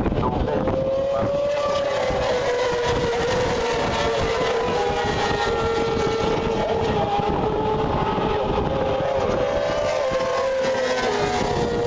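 A pack of racing motorcycles running at speed on a circuit. Several engine notes overlap, rising and falling a little as the bikes go through the corner.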